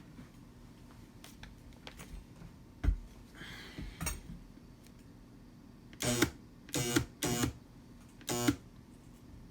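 Robot Coupe MP 600 Turbo immersion blender motor buzzing in four short bursts about six seconds in, as the switch is pressed and released, after a few handling clicks. The motor gets power but is stuck and does not spin up.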